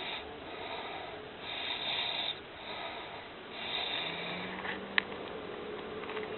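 Donkey snoring in its sleep: repeated noisy breaths, with a single sharp click about five seconds in and a steady hum after it.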